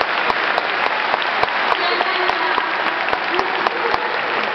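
Stadium crowd applauding, with a steady beat of sharp strikes, about three a second, running through it.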